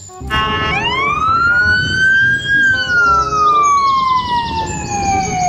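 Ambulance siren wailing: one slow rise and a long fall in pitch, starting to climb again near the end, over a low rumble.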